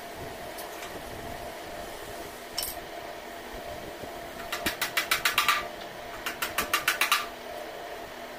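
Hammer tapping nails into a clamped wooden door-frame joint: one knock, then two quick runs of light rapid blows, about eight a second, around the middle. A steady hum runs underneath.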